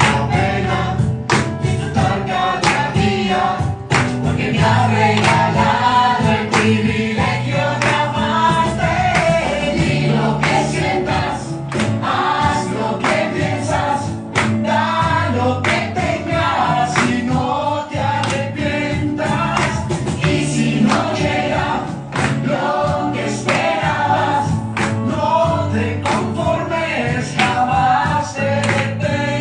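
A song with several voices singing together over a backing track with a steady bass and beat.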